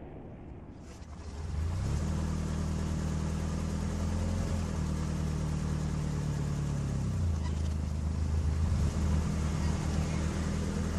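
A motor vehicle's engine running with a steady low drone. Its pitch steps up about two seconds in and drops back about seven seconds in.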